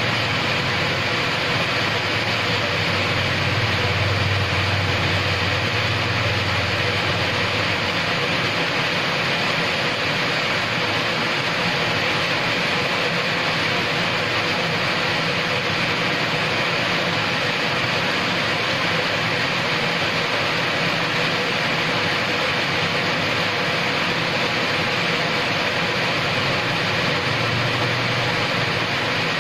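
Steady rain falling on wet paving and plants, an even hiss with no let-up. A low rumble swells for a few seconds near the start and briefly again near the end.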